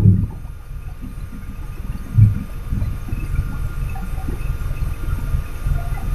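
Low, steady rumble of a container trailer truck's engine and road noise heard from the cab, with one brief louder low thud about two seconds in.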